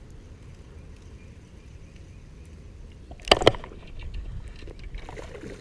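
Wind rumbling on the microphone, with two sharp knocks in quick succession a little past halfway, followed by some rustling.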